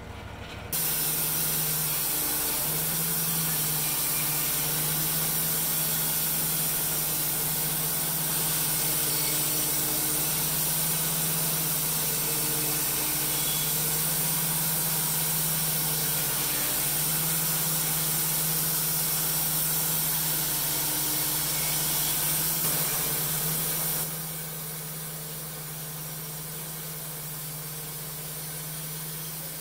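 Wood-Mizer LT15 Wide band sawmill running as its head feeds the blade through a small olive log: a steady hum with a hiss over it. The level steps up about a second in and eases off somewhat near the end.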